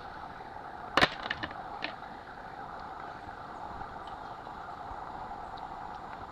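A single sharp knock about a second in, followed by a few lighter clicks, over a steady background hiss.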